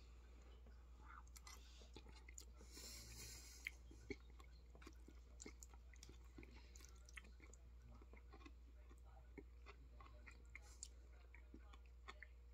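Faint chewing of a mouthful of chicken lo mein noodles, with small scattered mouth clicks and a couple of sharper ticks about four seconds in. A low steady hum sits underneath.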